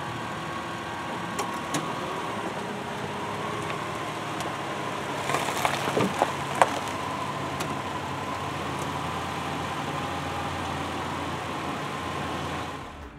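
2002 Subaru Outback L.L.Bean's flat-six engine idling steadily as the car rolls backward off its ramps, the exhaust free of the heat-shield rattle that was just repaired. A few light clicks come about five to seven seconds in.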